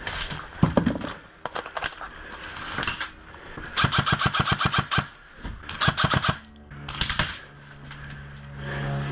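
Electric airsoft rifle firing several short full-auto bursts, a rapid even clatter of shots, the longest lasting about a second. Near the end, background music with steady low notes comes in.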